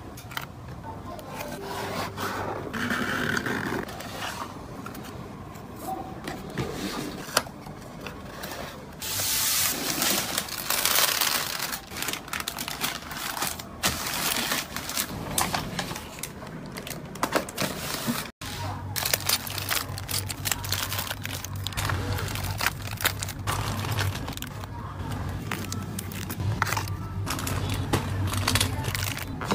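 Close-up handling of packaging: plastic sleeves and a plastic poly mailer rustling and crinkling, with taps and scrapes of items against the table. A denser rustle runs for about two seconds in the middle, and a low steady hum sits under the second half.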